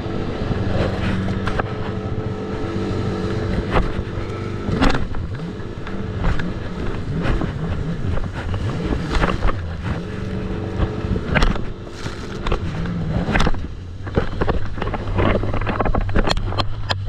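Jet ski engine running under way, with many short sharp knocks over it. About three-quarters of the way through, the engine note drops to a lower, steadier hum.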